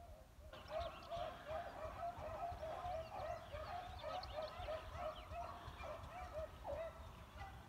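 Pack of beagles baying as they run a scent trail: a fast, overlapping string of short calls that starts about half a second in and keeps going.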